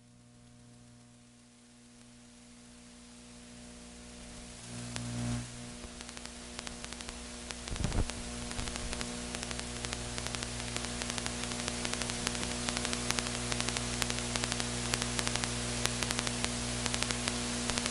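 Steady electrical hum with a hiss of static that grows louder, dotted with fine crackling.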